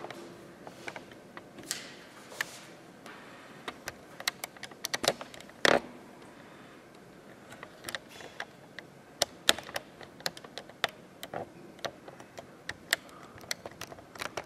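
Scattered, irregular clicks and taps in a small room, with a louder knock about six seconds in.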